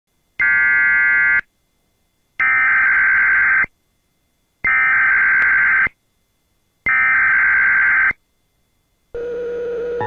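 Emergency Alert System SAME header: four bursts of warbling data tones, about a second each with a second of silence between them. About nine seconds in, the steady alert attention tone begins.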